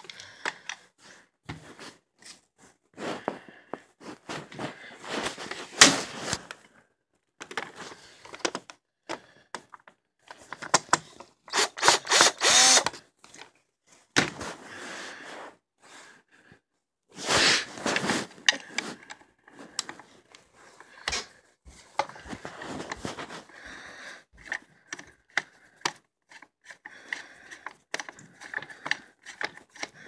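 Cordless drill-driver run in several short whirring bursts, backing out a stuck screw from a Shark vacuum's plastic housing, with knocks and clicks of handling between bursts.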